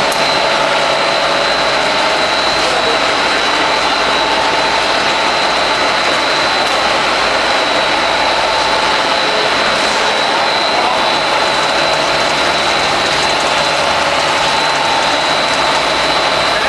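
Machinery of a PVC foam board production line running: a steady, loud factory drone with a constant high whine over it.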